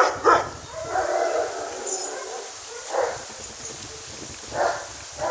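A small dog barking in a few short, separate barks spread out, with a longer drawn-out cry about a second in.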